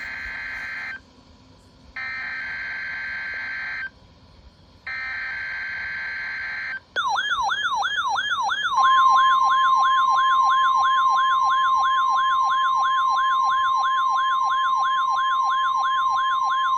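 NOAA Weather Radio weekly-test alert: the harsh buzzing data bursts of the SAME digital header, sent three times with a short pause between each. Then, about seven seconds in, a siren-like warbling alarm sweeping about three times a second, joined about two seconds later by the steady 1050 Hz weather alert tone.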